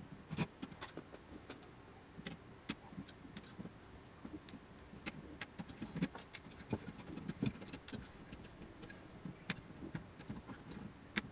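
Irregular small clicks, taps and knocks of hand tools and metal parts being handled while an electronics enclosure is taken apart, with a few sharper snaps scattered through.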